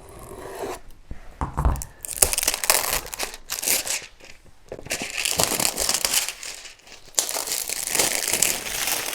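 Packaging being torn open and crumpled by hand: an irregular run of tearing and crinkling that grows denser about two seconds in, with a dull thump shortly before.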